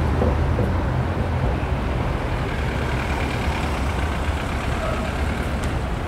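Street traffic: cars moving through an all-way stop intersection, a steady low rumble of engines and tyres with no single event standing out.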